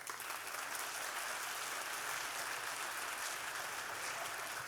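Audience applauding, a steady sustained clapping of many hands.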